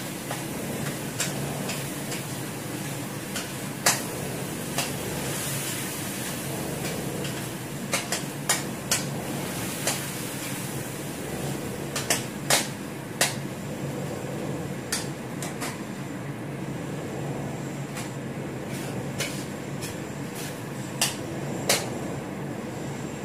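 A spatula tapping and scraping against a wok while stirring pasta: irregular sharp clinks, a dozen or so spread through, over a steady background hum.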